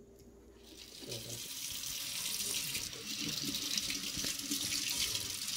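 Water running from a sink faucet into the basin, coming in about a second in and then running steadily.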